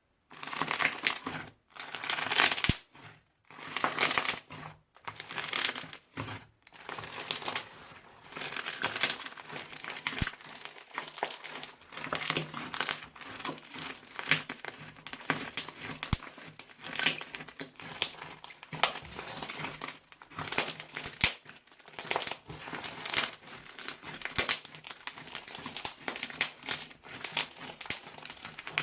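Crunchy slime full of beads being handled, giving a dense run of small crackles and pops. It starts suddenly, breaks off briefly several times in the first seven seconds, then runs on without a break.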